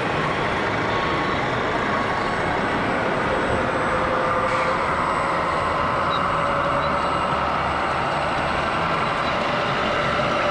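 Radio-controlled model construction trucks and diggers working, their motors and truck sound modules running over a steady background noise, with a faint whine that slowly rises in pitch in the second half.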